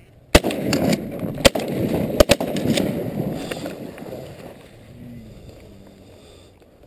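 Four shotgun shots fired at ducks in about two seconds, the last two almost on top of each other as both hunters fire.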